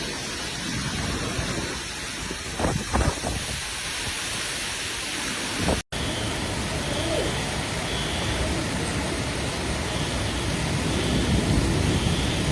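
Heavy rain and running storm water making a steady rushing noise, in two clips joined by a sudden cut about six seconds in, with a couple of brief knocks around three seconds.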